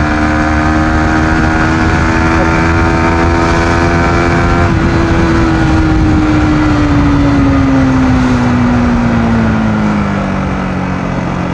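Yamaha MT-15's 155 cc single-cylinder engine heard from the saddle under way, with road and wind noise. It holds a steady, slightly rising note, then about halfway through the throttle eases off and the pitch falls as the bike slows.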